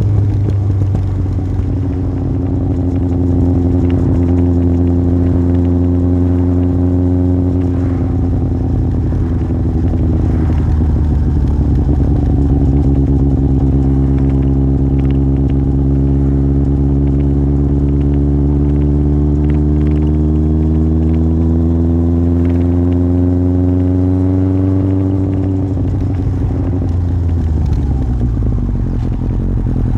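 Yamaha Fazer 1000's inline-four engine through an aftermarket MIVV exhaust, under way at a steady cruise. Its note dips slightly, then climbs slowly for about twenty seconds, and falls away a few seconds before the end before settling.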